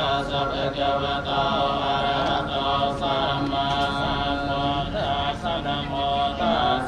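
Buddhist Pali blessing chant: voices chanting a steady, near-monotone recitation in unison without pause.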